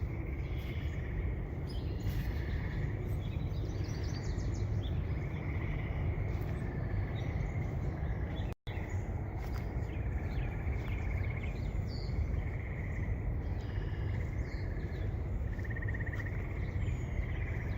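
Marsh ambience: short buzzy trills from wetland creatures recur every few seconds over a steady low rumble. The sound drops out briefly about halfway through.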